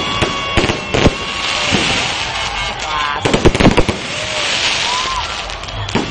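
Fireworks going off: a constant crackle and hiss of burning sparks, broken by sharp bangs, with a quick run of loud bangs about halfway through.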